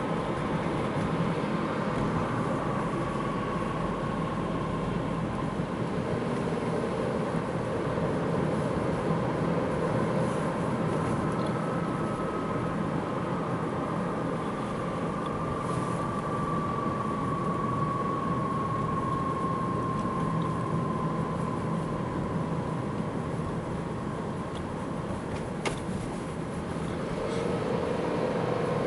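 Nissan X-Trail driving with steady road noise and a quiet whistle that slowly falls in pitch as the car slows from about 60 to 50 km/h, like a falling aerial bomb. The whistle comes briefly at the start and again for a longer stretch from about a third of the way in. It does not depend on 2WD/4WD mode or on the gear (D/N).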